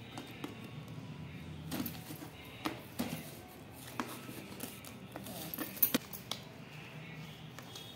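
Clear plastic food storage boxes being handled and stacked on a stone countertop: a scattering of light plastic clicks and knocks, about half a dozen, with one sharper knock past the middle.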